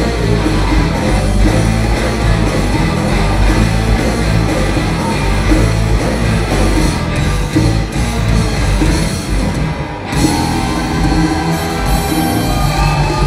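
Live band playing Latin funk-rock: electric guitar over bass and percussion, with a brief drop in the playing about ten seconds in.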